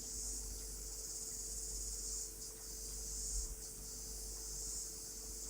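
Steady high-pitched background hiss that swells and fades gently, over a faint low hum.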